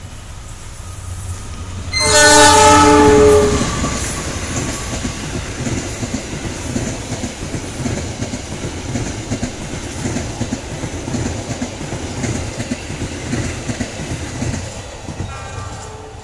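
Diesel locomotive horn sounding one loud blast about two seconds in, lasting about a second and a half, followed by the train passing: rumbling wheels with a rhythmic clickety-clack over the rail joints. A short, fainter horn note comes near the end as the train moves away.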